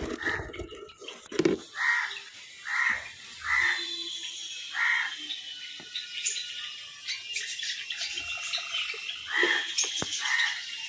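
A series of short, harsh animal calls, each about a third of a second long and repeated roughly every second, with a pause in the middle. Crackling handling noise from straw nesting material sounds in the first second or so, and faint high chirps are heard in the middle.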